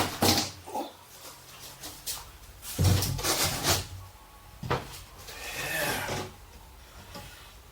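Wooden cabinet parts being handled and fitted: a sharp knock at the start, scraping and sliding of wood, another knock about halfway through, and a longer rub shortly after.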